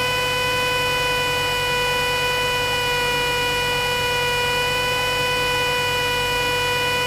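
Cessna 172S cockpit sound in flight through the headset intercom: a steady low engine drone under a constant high-pitched hum with even overtones, unchanging throughout.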